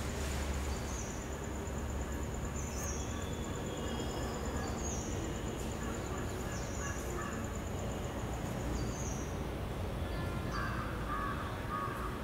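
Steady low background rumble with short high chirps about every two seconds and a few harsher calls near the end.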